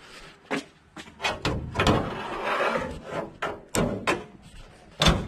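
Clicks and knocks as a Geo Tracker's hood is lowered, with some rubbing in the middle, then one loud slam near the end as the hood shuts.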